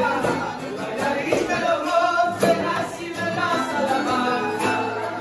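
Live Argentine folk music for a gato dance: singing over guitar, a bombo drum and accordion.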